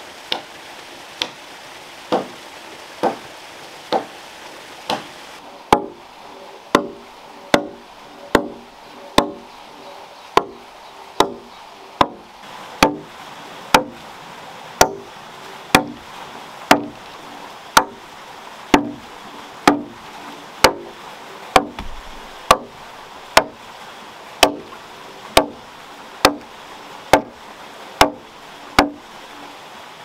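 Axe chopping into a log, steady blows about once a second, cutting a notch for a joint.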